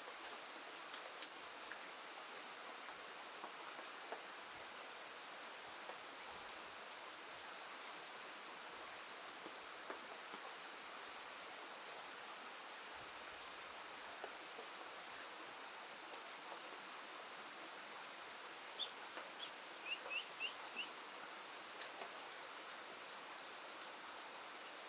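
Steady hiss of rain and river water, with scattered light ticks. About three-quarters of the way in, a bird gives a quick run of about five short chirps.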